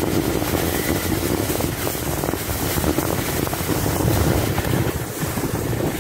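Rushing, scraping noise of a sled sliding fast down a snow slope, with heavy wind buffeting the microphone; it eases a little near the end.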